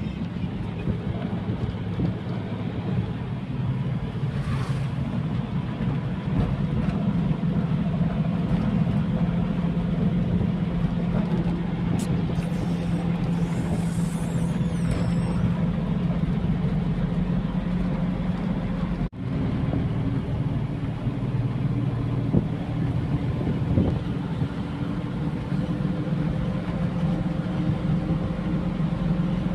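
A vehicle's engine running steadily, a constant low hum over road noise, which drops out for an instant about two-thirds of the way through.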